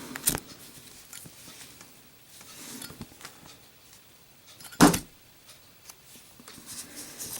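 A Zippo lighter dropped in a drop test: a small click and faint handling noise, then one sharp knock about five seconds in as it lands.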